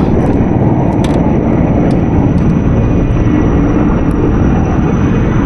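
Firefighting helicopter flying close by: loud, steady rotor and engine noise.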